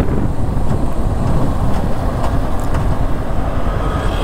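Yamaha R15 V4's 155 cc single-cylinder engine running as the motorcycle is ridden and eased down in speed, a steady low drone mixed with road noise.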